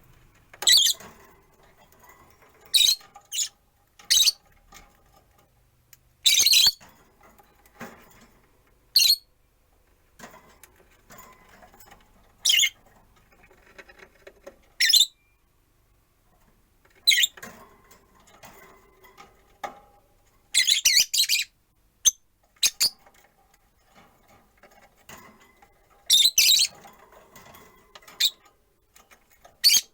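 Rosy-faced lovebirds calling: short, sharp, shrill chirps every few seconds, some coming in quick runs of two or three.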